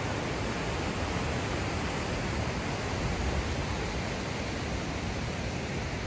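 Steady, unbroken rush of falling water from the Marmore Falls, with strong low rumble and no distinct events.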